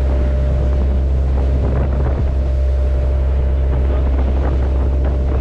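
A boat's engine runs steadily under way with a constant low hum. Wind buffets the microphone and the rough sea splashes around the boat.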